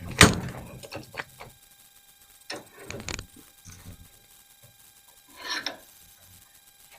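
Rifle parts being handled during assembly: one sharp knock, then a few scattered light clicks and a short scrape of parts being fitted together.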